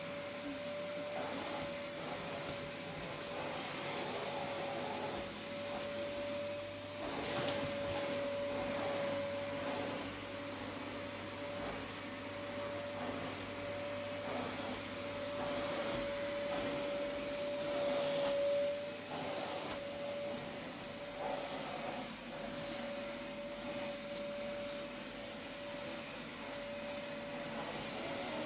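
Steady whine of a small spinning machine holding one pitch, over an even hiss.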